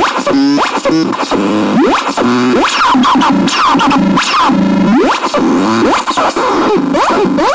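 CASENAX synthesizer playing a busy run of quick rising and falling pitch sweeps and short chirping bleeps, with no pause.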